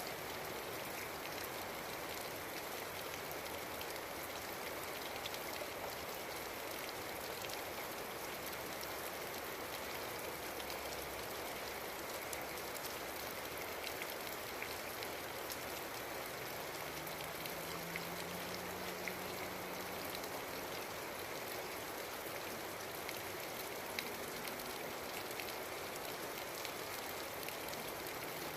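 Steady rain falling, with scattered sharp ticks of drops hitting a nearby surface.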